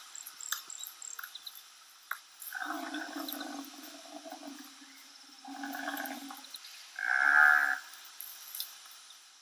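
Bison grunting: three low, drawn-out calls, the first about a second and a half long, the last the shortest and loudest.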